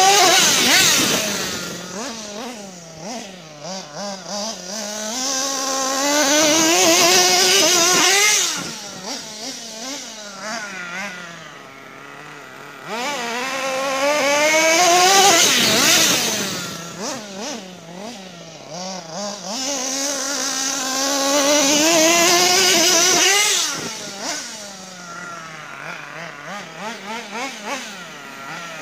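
Kyosho Mad Armour RC monster truck's small engine revving as it drives, its buzzing pitch climbing and falling back in four long, loud surges about seven seconds apart, quieter in between.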